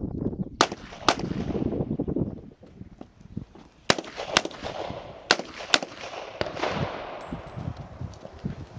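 Revolver fired six times in three pairs, about half a second between the shots of each pair. A low rumble runs under the first two seconds.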